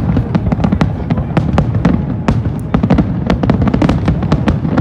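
Dense fireworks barrage: many overlapping booms and sharp cracks, several a second, over a continuous low rumble.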